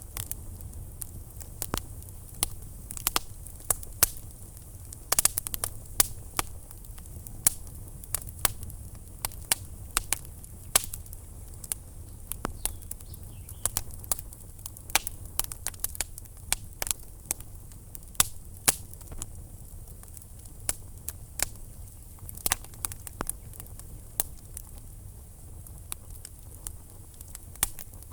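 Wood fire crackling in a fireplace: frequent sharp, irregular pops and snaps over a steady low rumble of the flames.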